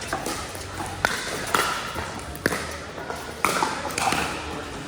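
Pickleball paddles hitting a plastic ball during a rally: several sharp pops, roughly a second apart, echoing in a large hall.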